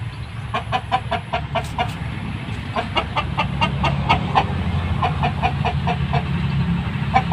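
Chicken clucking in quick runs of short, evenly spaced notes, about five a second, pausing between runs, over a steady low hum.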